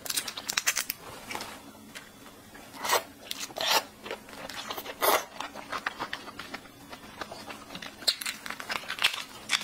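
Fingers cracking and peeling the shell off a large cooked red shrimp, close to the microphone: a run of small wet crackles with a few louder snaps scattered through, mixed with wet mouth sounds as the shrimp meat is eaten.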